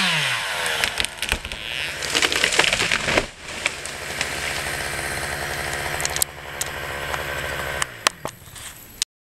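Chainsaw coming off full throttle as the cut ends, the engine note dropping sharply. After a spell of crackling and knocks it idles steadily, then winds down and stops near the end.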